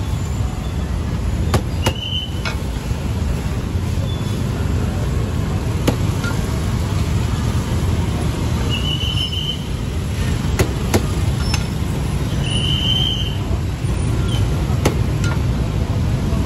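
Dense street traffic of motor scooters, a steady low rumble, with three short high beeps a few seconds apart.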